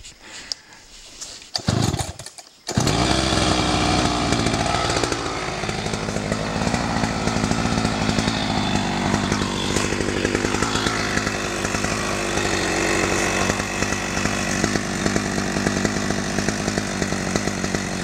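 Chainsaw starting up suddenly about three seconds in, its pitch sagging over the next couple of seconds, then running steadily while clearing invasive oriental raisin trees (Hovenia dulcis).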